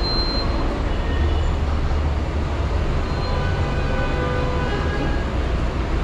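Steady city street traffic noise: a continuous low rumble of passing vehicles.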